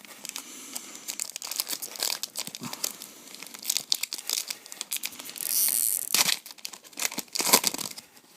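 A 2012 Bowman Chrome trading-card pack being torn open, its wrapper crinkling and crackling irregularly, with a few sharper rips in the last few seconds.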